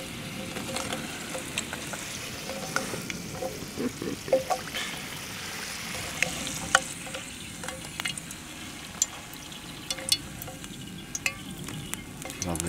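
Chips frying in oil in a pan over a campfire, a steady sizzle with many sharp pops and crackles. A metal slotted spatula scrapes and lifts chips in the pan.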